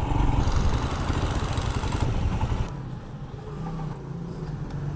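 Motorcycle engine with its stock silencer running on the move, with wind and road noise. About two and a half seconds in it cuts to a quieter, steady idle with the bike standing still.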